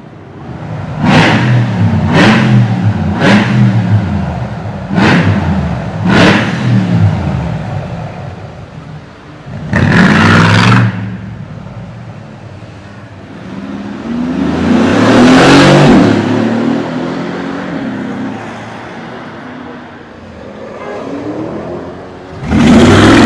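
Mercedes-AMG G-Class (G-Wagon) engine being revved: about six short sharp blips in quick succession, then a loud rev, a longer rev that rises and falls, and another loud rev near the end.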